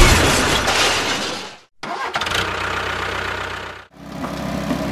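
A small motor running steadily in short clips separated by two abrupt cuts. After the second cut it settles into a steady hum with a light, regular ticking.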